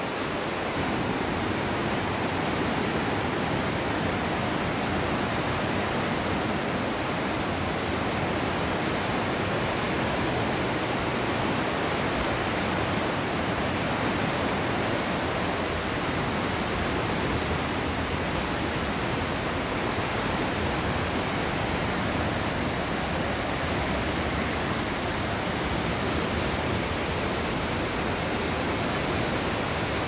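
The Aare river rushing through a narrow rock gorge: a steady, even rush of water, a little louder after about a second.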